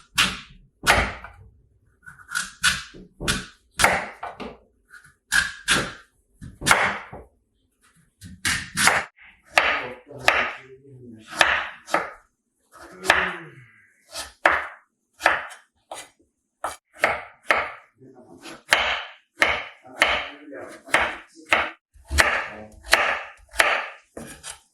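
Knife chopping food on a wooden cutting board: a long run of separate, irregular cuts, roughly one to two a second.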